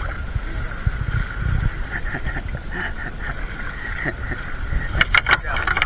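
Water splashing and sloshing as a fishing net is hauled and gathered by hand in the water, over a steady low rumble of moving water on the microphone; a few sharper splashes come about five seconds in.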